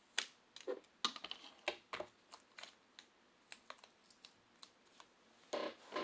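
Irregular sharp clicks and light taps of small plastic parts and tools being handled during a tablet touchscreen repair, about a dozen in all, with a denser scraping and rustling stretch near the end.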